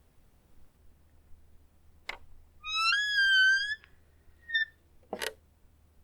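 Creaky door: a click, then a hinge squeal lasting about a second in one tone that rises and then wavers, a short squeak, and a knock near the end.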